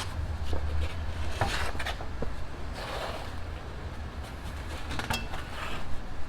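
Scattered metallic clinks and knocks as a car wheel is lifted onto the hub over a wheel spacer, one with a short metallic ring about five seconds in, over a low steady rumble.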